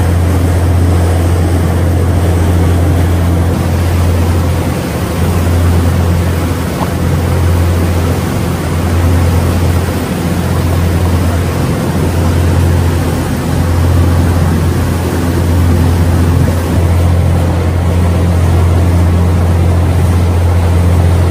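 Car ferry Harukaze under way: the steady low drone of its engines under a continuous rushing noise of wind and passage, the low hum swelling and easing slightly.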